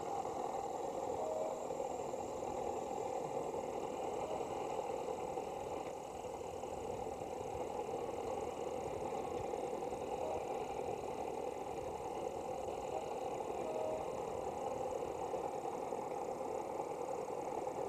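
Boat engine running steadily under way, a continuous drone with a little rattle, dipping slightly about six seconds in.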